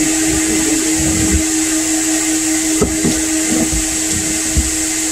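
Coin-operated car wash vacuum running: a steady motor drone with a constant hum and hiss, with a couple of brief knocks about three seconds in and again near the end.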